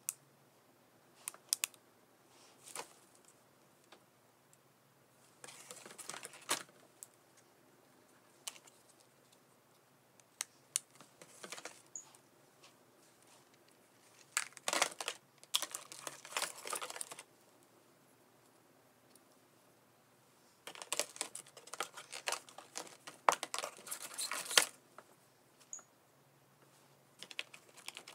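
Plastic items and packaging handled during an unboxing: scattered clicks and taps, with several spells of dense clicking and rustling a few seconds long.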